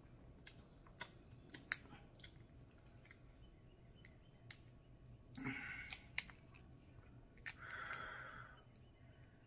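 Faint, scattered clicks and snaps of snow crab leg shell being cracked and picked apart by hand, with two brief, slightly louder rustling sounds about halfway through and near the end.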